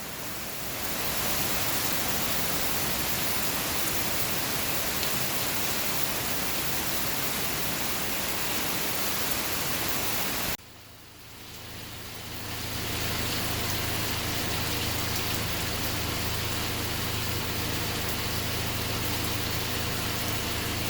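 Heavy typhoon rain pouring down in a steady, loud hiss. It cuts off sharply about halfway through and fades back in, now with a steady low engine hum beneath it.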